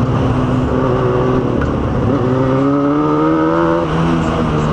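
Motorcycle engine accelerating through the gears. Its pitch climbs, drops at a shift about two seconds in, climbs again and drops at another shift near the end.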